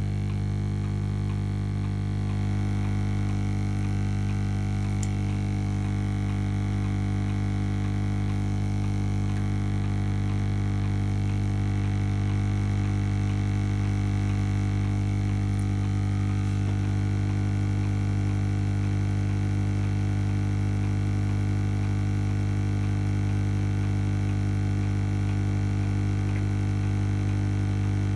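Lukey 852D+ hot air rework station running, a steady low electrical hum with a strong drone and its overtones, as it blows hot air to desolder an IC.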